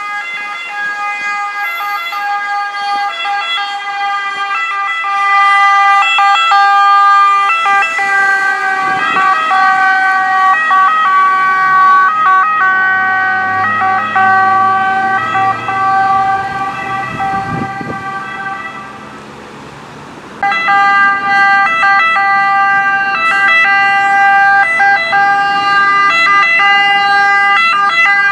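Emergency vehicle sirens: first a Croce Rossa Italiana ambulance's siren, rapidly switching pitch, which fades somewhat near 19 seconds, then after a sudden jump about 20 seconds in, a loud siren from an approaching Vigili del Fuoco Fiat Fullback pickup. Low vehicle engine and tyre rumble runs under the siren in the middle stretch.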